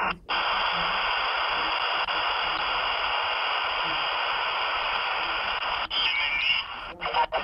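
Software-defined radio receiver audio from the phone: a steady hiss of band noise through a narrow filter. It cuts out briefly just after the start and several times near the end, with a faint signal showing through the noise around six seconds in.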